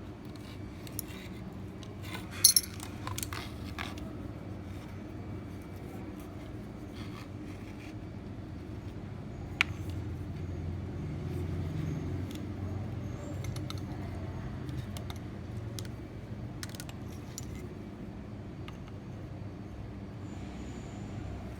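Scattered light clicks and clinks of small hard objects being handled, loudest in a quick cluster about two and a half seconds in, over a steady low hum.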